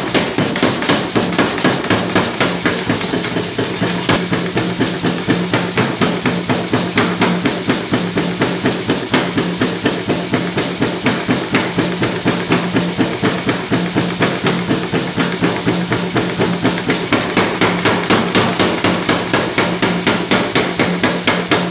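Mechanical power hammer striking a red-hot steel tong blank in rapid, even blows as the bar is drawn out into the reins.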